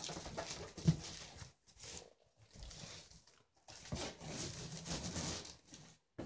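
Wrapping paper crackling and tearing as it is ripped off a large cardboard gift box, in two spells with a pause between. A dull thump about a second in.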